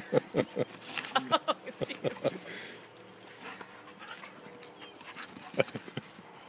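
A year-old German Shepherd–Golden Retriever mix dog whining in quick, short yelps that fall in pitch, in a run over the first couple of seconds and again a few times near the end: excited and eager for the ball to be thrown.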